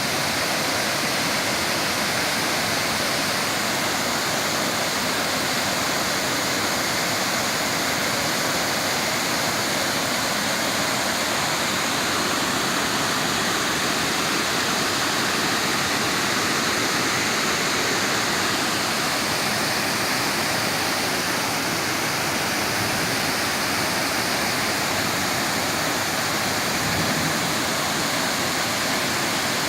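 Rain-fed waterfall crashing down after an hour of heavy rain, a steady, loud rush of falling water.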